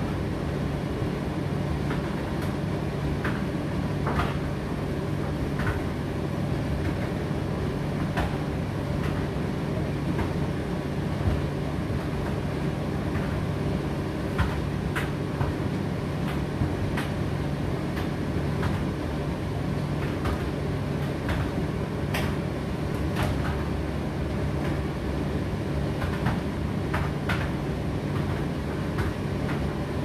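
Indesit IDC8T3 condenser tumble dryer running on high heat: a steady low motor hum and drum rumble, with irregular light clicks and knocks as the load tumbles in the drum.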